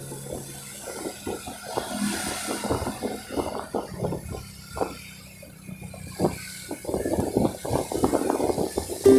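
Traffic and road noise heard from a moving vehicle on a wet street, with irregular low thumps and rumbles.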